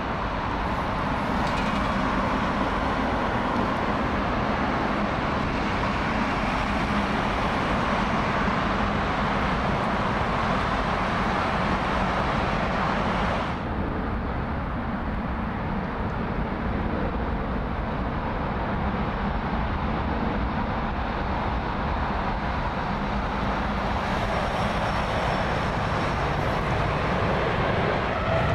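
Jet engines of a taxiing Boeing 777 running at low power: a steady rushing hum. About halfway through the upper hiss drops away suddenly.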